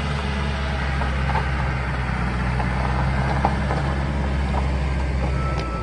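Pickup truck driving, its engine a steady low hum.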